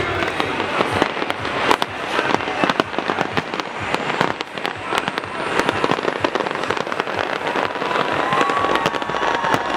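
Large fireworks display: a dense, rapid crackle of firework bursts, many sharp pops and bangs in quick succession.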